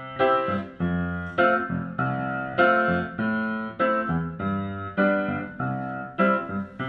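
Keyboard music: piano-like chords struck in a steady rhythm, about two a second, each ringing and then fading.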